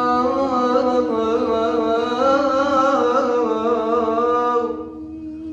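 A man singing one long, wavering melismatic phrase with heavy vibrato over a steady held lower tone; the phrase breaks off near the end.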